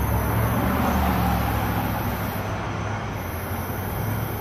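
Steady low rumble of road vehicles under a hiss, easing slightly toward the end.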